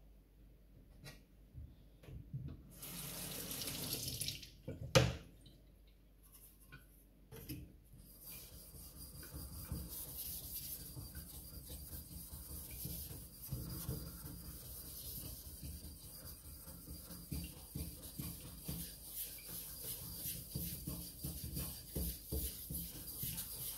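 Wet whetstones being rubbed against each other in steady back-and-forth scraping strokes from about eight seconds on. Earlier there is a brief rush of water and one sharp knock about five seconds in.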